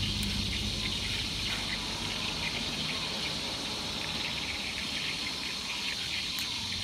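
Metal spoon pressing tomato pulp through a wire-mesh strainer, with wet squishing and juice trickling into a stainless-steel bowl, over a steady high hiss.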